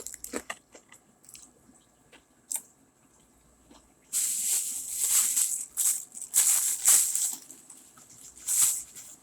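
Crunching and chewing of crispy Popeyes fried chicken close to the microphone, in irregular bursts that start about four seconds in, after a few faint clicks.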